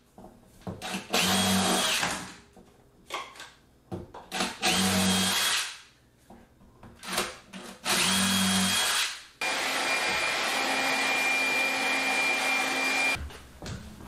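Cordless drill pre-drilling pilot holes into a birch butcher-block tabletop. Three short runs of about a second each, the motor whine spinning up and winding down, are followed near the end by one longer steady run of nearly four seconds, with light handling clicks between.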